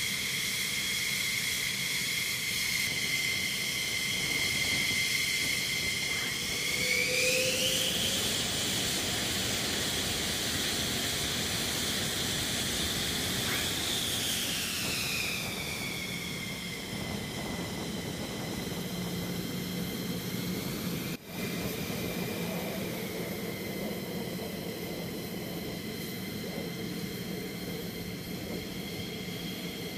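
F-15E Strike Eagle's twin jet engines running on the ground with a steady high whine over a rushing roar. About seven seconds in, the whine rises in pitch as the engines spool up, holds, then sinks back to its idle pitch between about fifteen and seventeen seconds.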